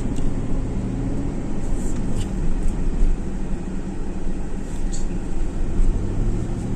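Cadillac Escalade SUV being driven on a road test after a new camshaft position sensor was fitted: steady engine and road noise with a low hum, the engine running without stalling. A few faint ticks sound along the way.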